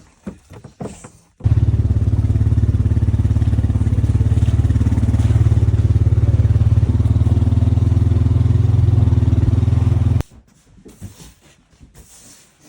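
A motor engine running steadily and loud close by, with a fast, even flutter. It starts abruptly about a second and a half in and cuts off abruptly near the end.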